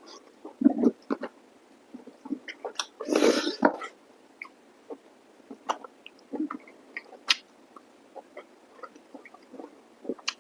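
Close-miked eating of chicken masala curry with rice and salad: irregular wet chewing and lip-smacking clicks, with a louder, noisier stretch about three seconds in.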